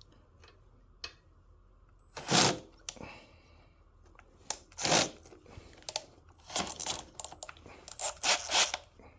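Handling noise from tools and parts: a few short scraping, clattering bursts, the loudest about two and a half seconds in and around five seconds, then a quicker cluster near the end.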